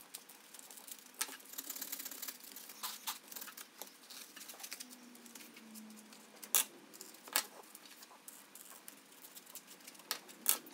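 Knife blade scratching and crackling as it slices through layered Kaizen foam, with four sharp clicks in the second half.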